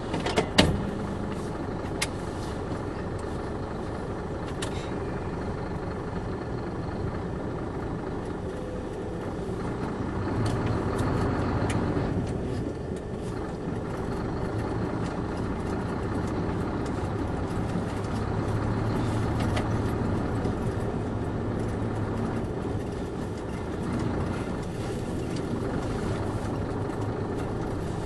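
A vehicle's engine and tyres driving on a snow-packed dirt road: a steady drone that swells a little now and then, with a few sharp clicks in the first couple of seconds.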